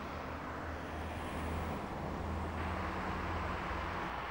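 Steady road traffic noise with low rumble, growing a little louder and brighter about two and a half seconds in as a vehicle passes.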